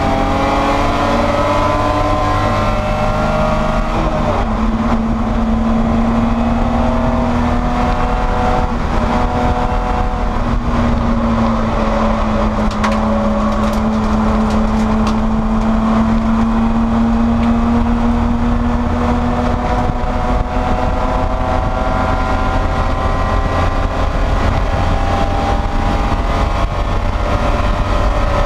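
BMW E30 race car's inline-six engine running hard under racing load, its pitch climbing slowly and shifting with changes of speed and gear, over steady wind and road noise.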